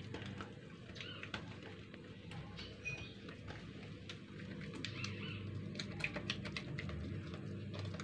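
Fingers pressing and patting oiled pizza dough out into a pan, making many light, irregular taps. Birds chirp briefly now and then in the background.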